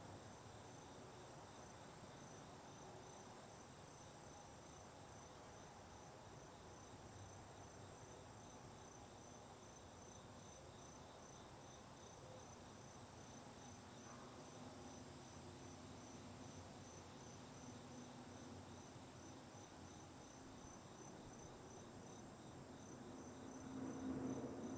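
Faint, steady insect chirping: a high-pitched chirp repeating at an even pace. A louder low-pitched sound comes in just before the end.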